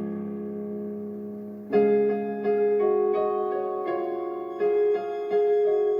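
Piano playing slow chords without vocals: a held chord fades away, then new chords are struck one after another from a little under two seconds in.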